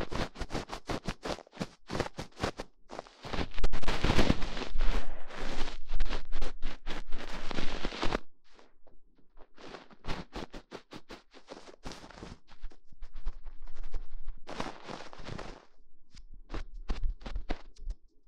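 Close-miked ASMR trigger sounds: quick, irregular tapping and scratching right on the microphone, with a stretch of denser, continuous rubbing in the first half.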